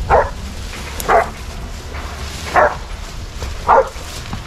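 A dog barking: four single barks, about a second or so apart.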